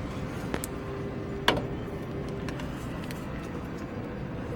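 Steady low background rumble with a faint steady hum, broken by two light clicks, about half a second and a second and a half in.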